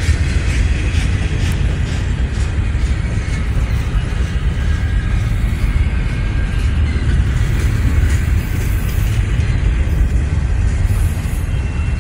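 Double-stack container freight train rolling past: a steady low rumble of steel wheels on the rails.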